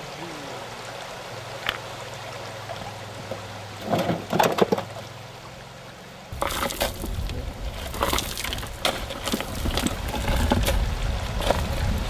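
Digging with shovels in earth: a few short scrapes and knocks about four seconds in, over a faint steady background. About six seconds in, a loud low rumble of wind on the microphone sets in, with scattered sharp knocks and clatters of work.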